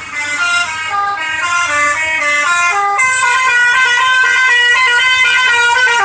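Bus 'telolet basuri' musical horn playing a fast tune, its notes stepping up and down several times a second; from about three seconds in, several notes sound together.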